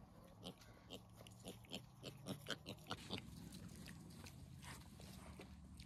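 Small black-and-white spotted piglet giving a run of short, soft grunts while it roots along the ground, about ten of them over the first three seconds.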